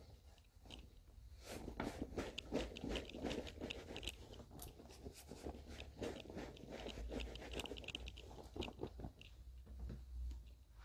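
Towel rubbing and scrunching a person's wet hair, a quick run of soft crunchy rubbing strokes that thins out near the end.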